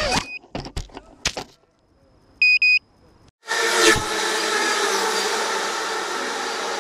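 A few short sharp sounds, then two quick electronic beeps, then an electronic music intro theme starting about three and a half seconds in.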